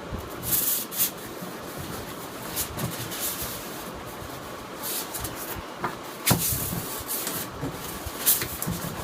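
Packaging being handled: irregular rubbing and rustling with a few sharp knocks, the loudest a little past six seconds in.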